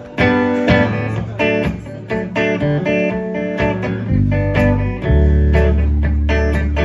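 Live rock band: two electric guitars playing picked notes and chords through amplifiers, with deep bass notes coming in about four seconds in.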